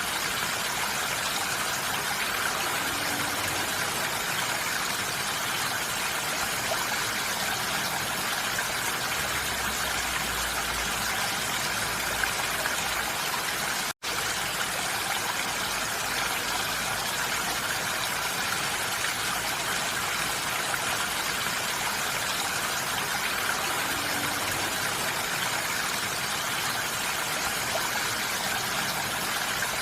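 Steady rain falling on a roof, an even hiss of drops with no distinct individual hits. A split-second gap of silence cuts in near the middle.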